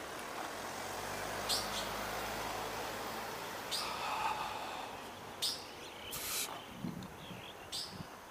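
Small birds chirping a few short times over the steady noise of a roadside, with a car going by in the first few seconds.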